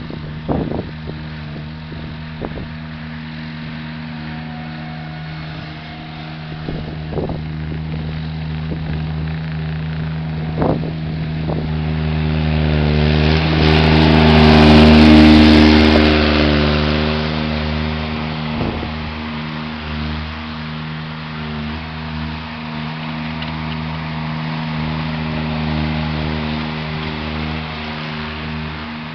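Mini skid steer's engine running steadily while it pushes snow, growing louder for a few seconds around the middle. A few sharp knocks come through early on and once later.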